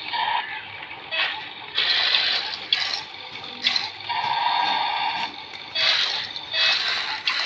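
Toy excavator's small electric motor and plastic gears whirring in repeated bursts of about a second, stopping and starting as the arm or bucket is worked.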